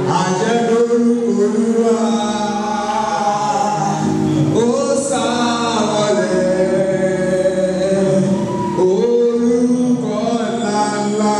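A man singing a gospel song through a microphone and PA, in long held notes over musical accompaniment.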